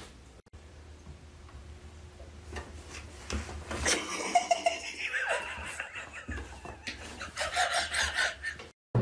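A person laughing, starting about four seconds in and coming in repeated fits toward the end.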